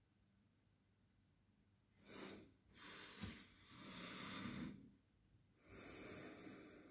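Faint breathing close to the microphone, starting about two seconds in: four airy breaths in a row, each half a second to a second long.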